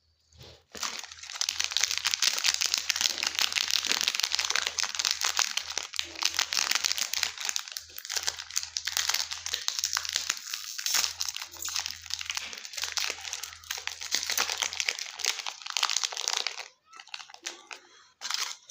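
Chocolate and candy wrappers crinkling continuously as they are handled and opened. The crinkling stops about two seconds before the end, leaving a few soft crackles.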